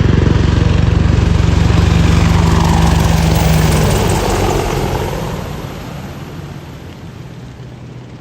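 AH-64 Apache helicopter flying past: a fast rotor beat with turbine noise, loud at first. A falling pitch sweeps through it about three seconds in, and the sound then fades away over the last few seconds.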